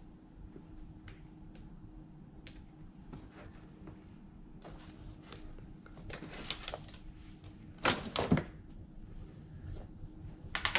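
Handling of a hard plastic tool carrying case on a table: scattered light clicks and knocks, with a louder knock about eight seconds in.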